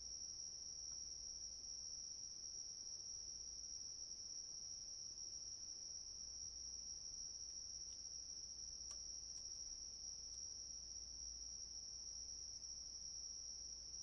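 Crickets chirping in a steady, high-pitched chorus with no breaks, faint and even throughout.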